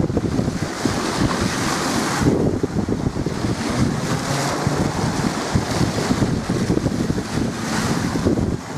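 Strong wind buffeting the microphone in gusts, over the wash of choppy water.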